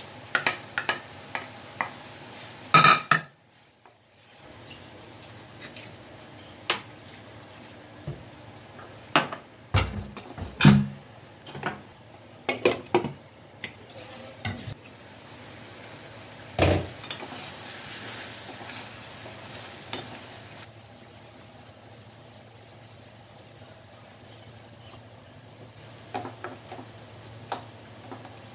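Chicken mince and tomatoes sizzling in a frying pan on a gas burner, with scattered knocks and clinks of a plastic spatula, a plate and a glass lid against the pan. The loudest knocks come about three seconds in and again about ten to eleven seconds in.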